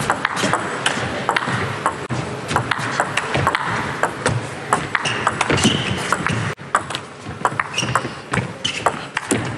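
Table tennis ball struck back and forth in a long rally, a quick, regular run of sharp clicks as it hits the rubber-faced bats and the table, over hall background noise that drops about two-thirds of the way through.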